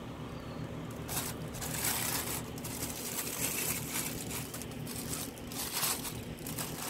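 Pink paper wrapping from a toy box being handled and pulled open, crinkling and rustling in irregular bursts.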